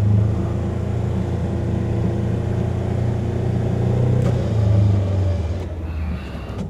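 Polaris Ranger XP 1000 Northstar UTV's twin-cylinder engine running steadily under load while pushing a plow through heavy wet snow, heard from inside the cab. The engine note eases off about five and a half seconds in.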